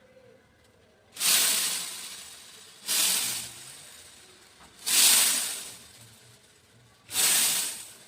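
Beads being poured in four short rushes, each starting abruptly and trailing off over about a second, about two seconds apart.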